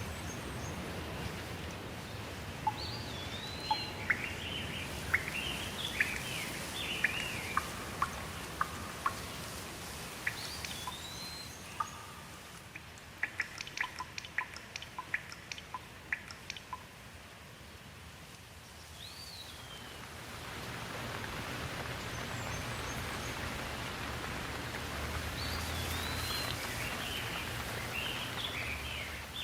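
Steady rain with birds calling over it: clusters of chirps and whistles that slide up and down, in the first third and again near the end. A run of sharp drip-like ticks comes about halfway through, while the rain eases for a few seconds before it picks up again.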